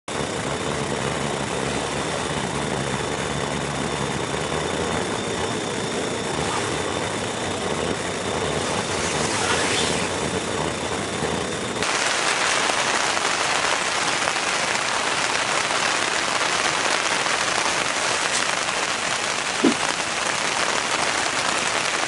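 Heavy rain beating steadily on a tent's fabric, heard from inside. For about the first twelve seconds a butane canister stove also burns steadily under a kettle. The sound then changes abruptly to a brighter, more even rain hiss.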